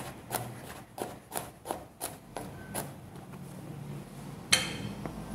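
Chef's knife chopping garlic cloves on a plastic cutting board: quick knife taps on the board, about three a second, then one louder knock near the end.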